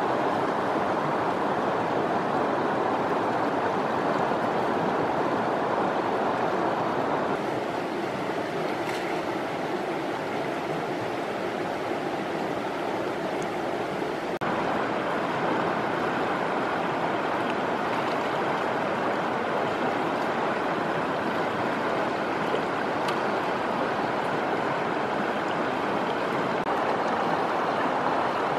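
River water rushing steadily, its tone shifting slightly about seven and fourteen seconds in.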